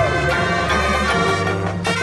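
Marching band playing: brass and woodwinds holding chords over steady low bass notes, with light drum strikes.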